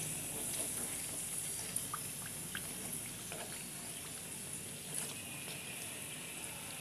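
Flower pitha deep-frying in hot oil over a raised flame, the oil sizzling steadily with a few faint crackles, at the final browning stage before they are lifted out.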